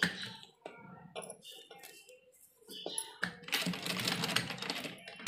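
Fabric rustling and small clicks as the cloth is folded and set under the presser foot, then about three seconds in a domestic sewing machine starts running steadily, stitching a basting seam along the folded neckline.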